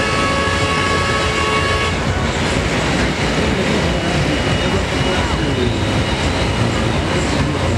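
Pulling-class farm tractor's diesel engine running hard under load, a loud, steady engine noise. A steady high whine over it stops about two seconds in, and the engine pitch shifts after that.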